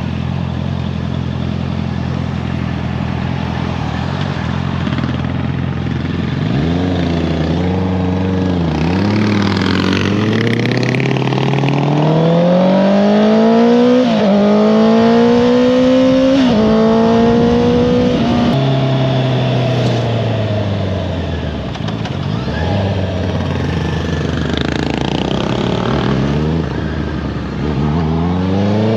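Honda CBR650R's inline-four engine through an Akrapovič exhaust. It runs steadily, then accelerates through the gears: the revs climb and drop back at each upshift, twice around the middle. It then rolls off and the pitch falls, before the revs climb again near the end.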